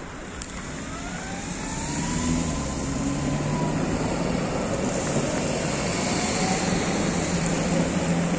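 Tatra T3 tram running on its rails, getting louder over the first two seconds, with a faint whine that glides in pitch. A steady low hum comes in about halfway through.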